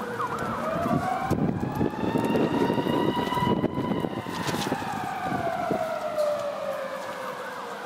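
Emergency vehicle siren wailing: one long tone that rises for about the first half and then slowly falls.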